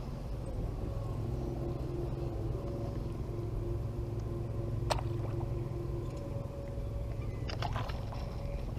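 Steady low rumble with a faint droning hum, and two sharp clicks, about halfway through and near the end.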